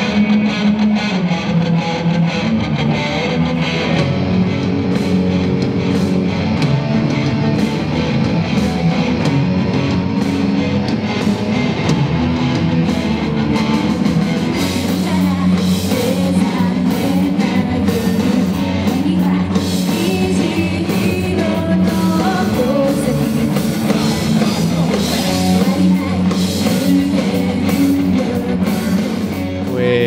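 Japanese-style rock song with electric guitars, a drum kit and singing, loud and continuous.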